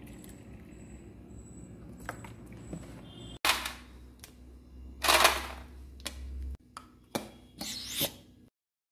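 Kitchen handling sounds around a steel mixer-grinder jar as milk is added to ground almonds: a few short scrapes and knocks, the loudest about five seconds in, over a low background hum.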